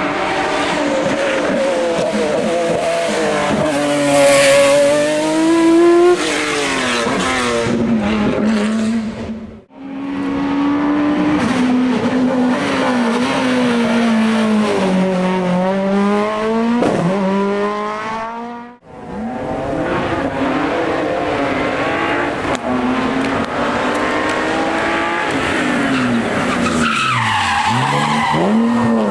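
Competition car engines at full throttle, the pitch climbing hard and dropping back at each gear change. Three runs follow one another, each cut off suddenly.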